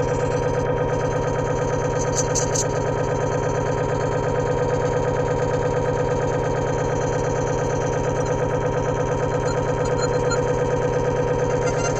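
Synthesizer playing a steady, buzzing drone that pulses rapidly and evenly, with a few short high clicks about two seconds in.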